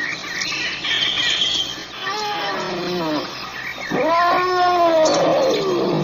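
African elephant calling: a shorter call about two seconds in that falls in pitch, then a louder one about four seconds in that swells and slides downward.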